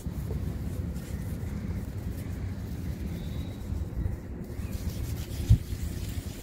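Dry sand being crumbled and rubbed by hand, a continuous low crumbling rustle, with one sharp thump about five and a half seconds in.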